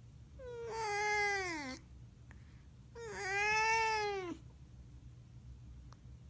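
Domestic cat making an unusual long, drawn-out meow twice, each call lasting over a second and dropping in pitch at the end.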